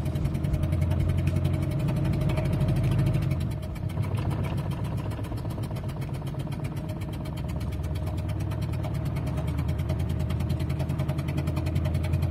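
Mazda WL-T 2.5-litre turbodiesel four-cylinder idling roughly on three cylinders, with a steady rapid pulse and a small dip in level about three and a half seconds in. One cylinder is not firing, which the owner puts down to lost compression in cylinder 3.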